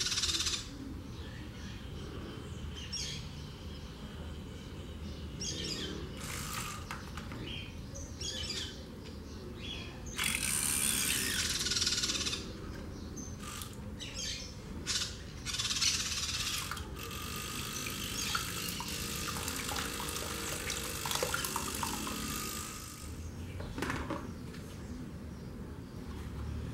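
Water churned and splashed in a plastic tray by a small battery-powered motor held at the surface, coming in hissing bursts: one about ten seconds in, and a longer stretch a few seconds later.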